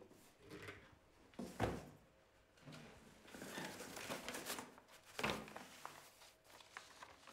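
A cardboard box set down on a wooden table with a thump, then its flaps opened and the contents handled with cardboard and cloth rustling, and a second thump about five seconds in.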